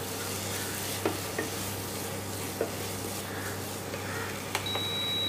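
Wooden spatula stirring thick carrot halwa sizzling in ghee in a nonstick pan, with a few light knocks of the spatula against the pan. A single high electronic beep sounds for about a second near the end.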